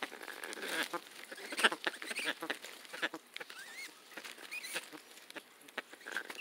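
Amazon parrot making soft noises as it is petted, including two short rising-and-falling squeaks around the middle, among a run of light clicks and rustles.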